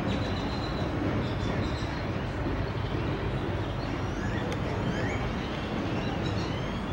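Steady low rumble of outdoor traffic, with birds chirping a few times, mostly a little past the middle.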